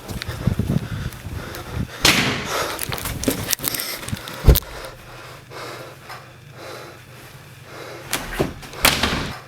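Irregular knocks and scuffs with one sharp bang about four and a half seconds in and shorter noisy bursts about two and nine seconds in.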